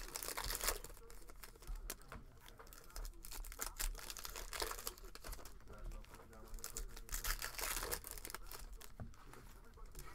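Foil trading-card packs crinkling and tearing as they are opened by hand, in irregular bursts.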